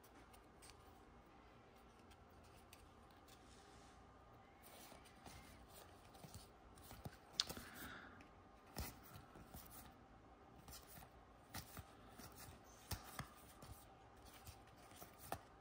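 Faint hand handling of basketball trading cards: quiet rustles and scattered sharp clicks as a stack of cards is sorted and shuffled, after a few seconds of near silence.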